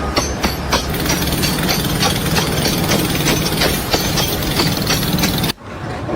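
Mechanical clatter: rapid, fairly regular clicking and knocking over a low hum, cutting off abruptly about five and a half seconds in.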